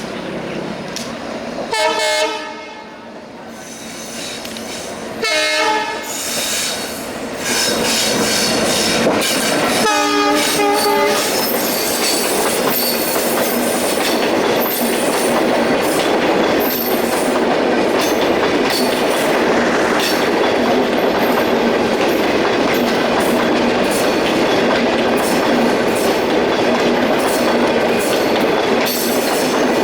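Passenger train's diesel locomotive sounding its horn in three blasts, the last about ten seconds in, then the train passing close at speed: a loud steady rush of wheels on rail with rapid clicking over the rail joints.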